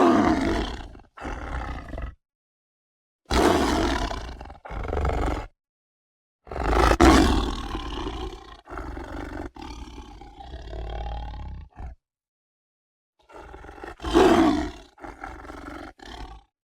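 Big-cat roars used as saber-toothed cat (Smilodon) sound effects: a series of separate roars, each cut off cleanly into dead silence, the longest lasting about five seconds and fading toward its end.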